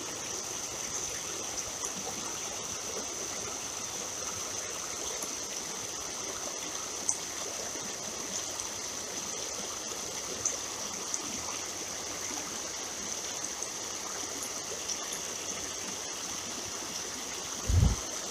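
Shallow creek water running steadily over riffles, with a steady high-pitched note underneath. Near the end there is one short low thump.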